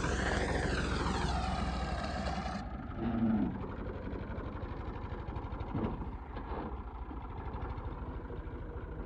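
Massey Ferguson 260 tractor's diesel engine running, its pitch rising and then falling over the first couple of seconds. The sound then drops abruptly to a quieter, steady engine running.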